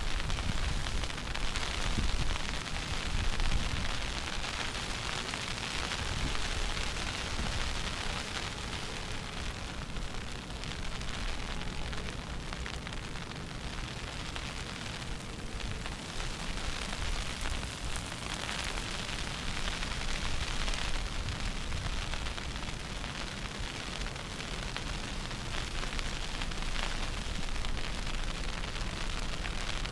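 Wind buffeting the microphone in a snowstorm: an uneven low rumble under a steady hiss.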